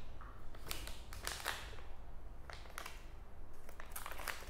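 Foil pheromone-lure sachet crinkling in the hand, in short scattered crackles and rustles.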